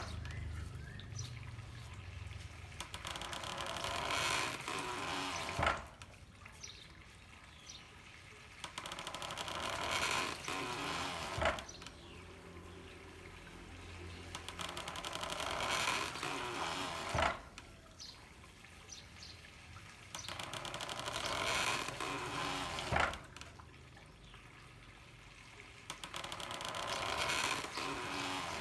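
Handmade water-powered corn mill working in a steady cycle: rushing water swells for several seconds, then a single sharp knock, repeating about every six seconds.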